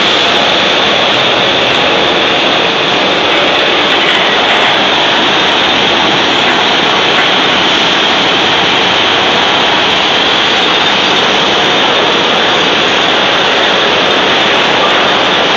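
Foundry shakeout grate and steel apron conveyor running, carrying freshly knocked-out castings: a loud, steady machine noise.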